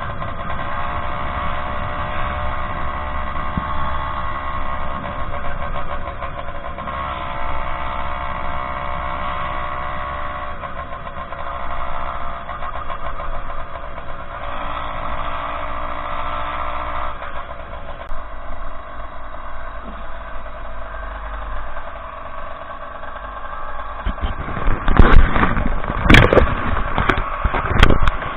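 The Zeda Dio 80cc two-stroke engine of a motorized bicycle running through its banana expansion pipe, its pitch shifting up and down a few times. Near the end come several loud, sharp thumps.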